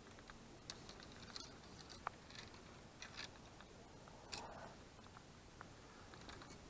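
Quiet background broken by a handful of faint, sharp clicks and ticks at irregular moments.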